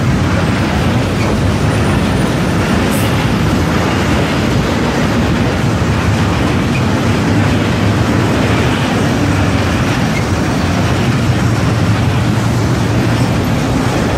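Freight train of covered hopper wagons rolling past at close range, a steady loud rumble of wheels on the rails that does not let up.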